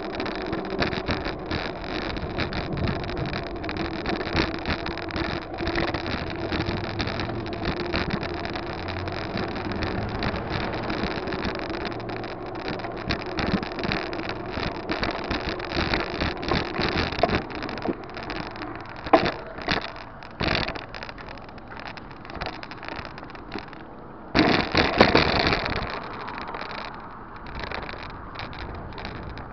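Wind rushing over the microphone of a camera riding on a moving bicycle, with frequent small knocks and rattles from the ride over the paved path. A louder burst of noise comes about 25 seconds in.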